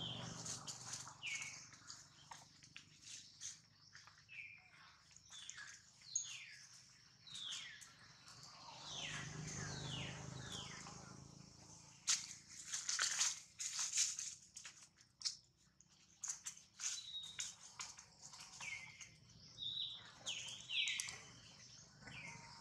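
Short, high chirping calls, each sliding downward in pitch, repeated irregularly throughout, over crackling and rustling of dry leaves that is loudest about halfway through.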